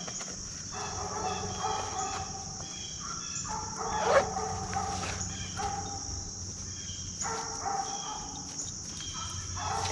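Steady high buzzing of insects such as crickets, with a series of drawn-out pitched animal calls repeating about every second and a half over it. A single sharp knock comes about four seconds in.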